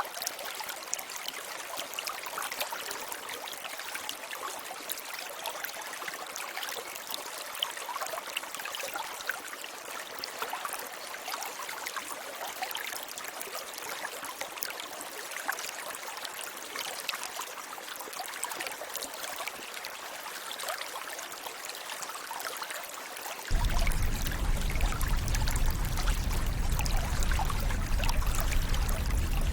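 Running water of a stream, trickling and splashing steadily. Near the end it cuts abruptly to a louder sound with a deep rumble added.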